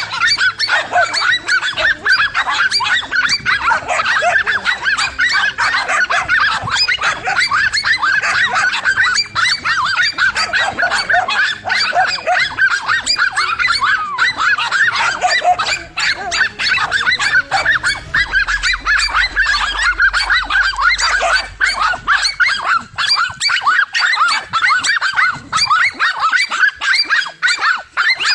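A pack of dogs barking and yapping without pause, many short, high, overlapping barks, as they hold a cornered monitor lizard at bay.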